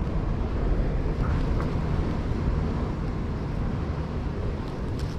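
Steady low rumble of sea surf and wind buffeting the microphone.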